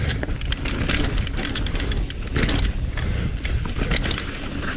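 Mountain bike riding fast down a dirt trail, heard from a camera mounted on the rider or bike: tyres rolling over loamy dirt and pine needles, with a steady low rumble and frequent clicks and knocks as the bike goes over roots and bumps.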